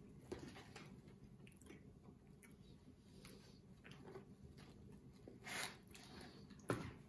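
Faint handling of a small cardboard snack box and its packaged pies being opened and pulled out: scattered light clicks and rustles, a louder rustle about five and a half seconds in and a sharp click near the end.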